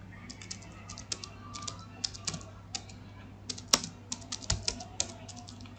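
Typing on a computer keyboard: a quick, irregular run of key clicks, with a couple of louder key strikes a little past the middle.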